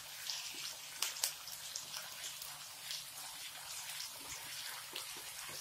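Chopped onion, green chilli and ginger-garlic paste sizzling and crackling in hot oil in a kadhai, stirred with a spoon; a low, steady sizzle.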